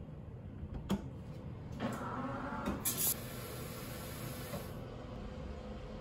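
Metal lever handle of a toilet-stall door pressed, its latch clicking sharply about a second in, followed by a few knocks and clicks as the door opens, then a steady hiss for about two seconds.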